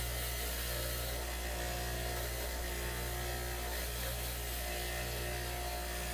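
Ingersoll-Rand bench grinder running, its wire wheel brushing a drill chuck held against it: a steady electric motor hum under an even hiss from the wire bristles.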